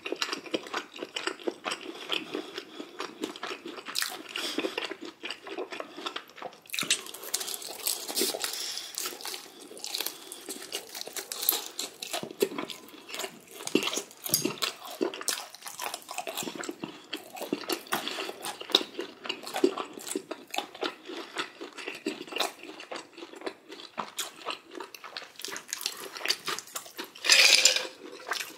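Close-miked eating: continuous chewing and biting with crunching, a dense run of small clicks, with one louder noisy sound about a second long near the end.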